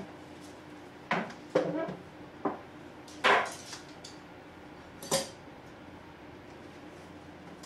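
Objects being handled and set down on a tabletop: five or so short knocks and clinks, with a quick cluster near two seconds in and another loud one a little after three seconds.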